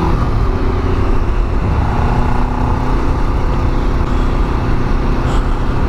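Kawasaki Ninja 500 parallel-twin motorcycle engine running at a steady road speed, under heavy wind rumble on the microphone, with tyres on wet pavement.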